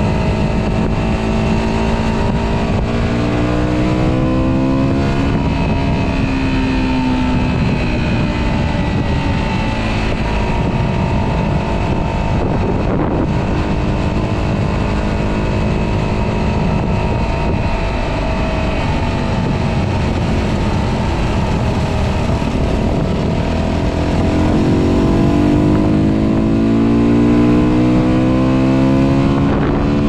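125cc motorcycle engine running under way, over a steady rush of wind across the camera microphone and road noise. The engine note climbs briefly a few seconds in, then climbs again and grows louder near the end as the bike accelerates.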